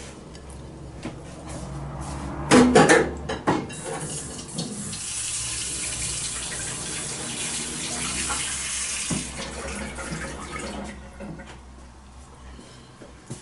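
A few clinks of dishes, then water running from a tap for about five seconds before fading out.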